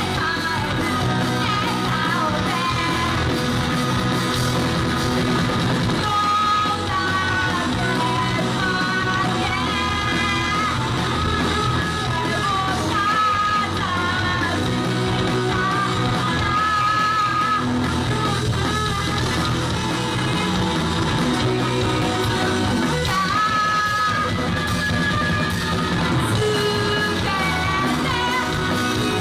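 Rock band playing with a singer: electric guitar and a full band under a sung melody that holds and wavers on long notes.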